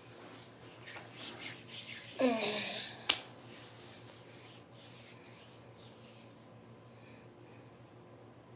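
Soft rubbing and rustling close to the microphone, with a brief falling vocal sound like a hum about two seconds in and one sharp click about three seconds in.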